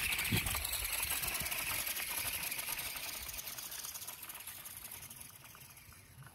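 Electric motor and gear train of a radio-controlled rock crawler whirring as it crawls up a rock slab, fading steadily.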